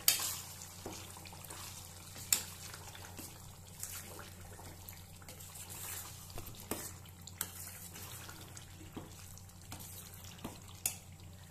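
A steel spoon stirring thick, oily tomato pickle paste in a stainless steel pan: wet, squelching stirring with a light sizzle, and now and then a sharp clink of the spoon against the pan. A faint steady low hum lies underneath.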